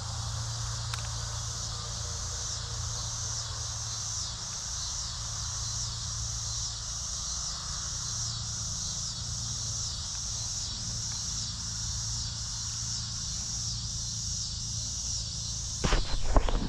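Insects chirping in a steady high-pitched chorus with a regular pulse, over a low steady hum. A brief burst of loud knocking or handling noise comes near the end.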